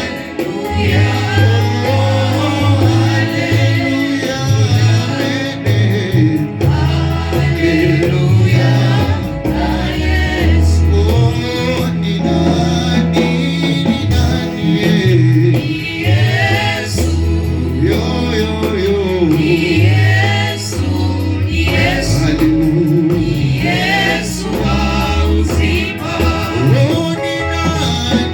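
Gospel worship music: singing voices over instrumental accompaniment with a prominent bass line.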